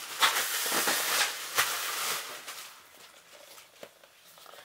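Plastic shrink-wrap crinkling and rustling as it is pulled off and crumpled up, dying down about two seconds in to faint handling sounds.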